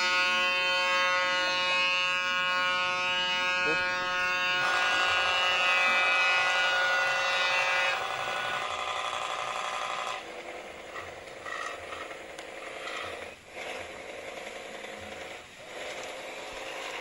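Toy pop-pop (otok-otok) steam boat running, its heated boiler's diaphragm giving a steady rapid buzzing putter. The sound changes abruptly a few times and is fainter in the second half.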